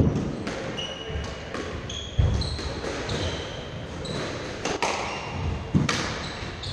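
A squash rally: the hard rubber ball cracks sharply off rackets and the court walls every second or so, and shoes squeak briefly on the wooden court floor between shots.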